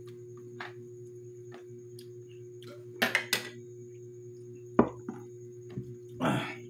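A metal spoon clinking against ceramic tableware a few times, the loudest click a sharp knock about two-thirds of the way in, over a steady electrical hum. A short scraping noise comes near the end.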